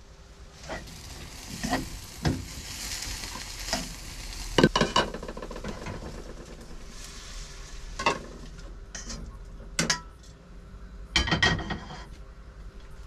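Squid pieces sizzling as they fry in oil in a frying pan, with a utensil stirring them and clicking and knocking against the pan every second or so.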